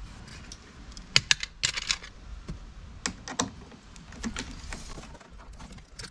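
Irregular light clicks and short rattles of a hand tool turning the mounting bolts of a car's door mirror.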